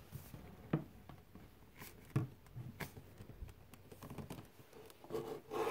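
Faint scraping and rubbing with scattered light knocks as a painted pole is worked down into a tight-fitting hole in the display's base.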